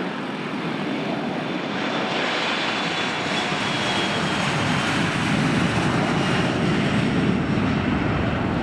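Airplane engine noise that slowly grows louder, as from an aircraft moving close by on the airfield.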